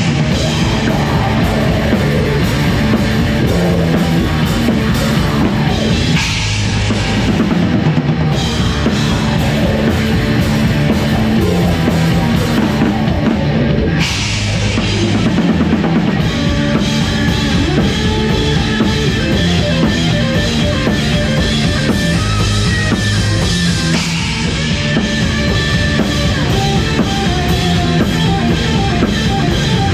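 Heavy metal band playing live at full volume, the drum kit loud in the mix with kick drum and cymbals driving under the guitars and bass. The riff changes a few times along the way.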